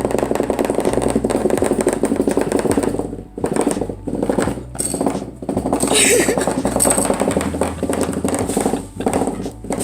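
Small battery-powered motor in a moving gadget, running with a rapid buzzing rattle.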